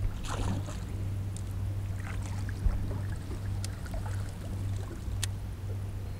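Steady low hum of a boat's motor running. Just after the start comes a brief splash as a hooked largemouth bass is scooped up in a landing net, followed by a few sharp clicks from the net and rod.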